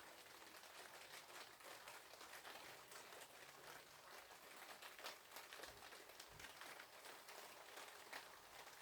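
Gentle rain falling on a patio: a faint, steady hiss of rainfall with many small drop ticks.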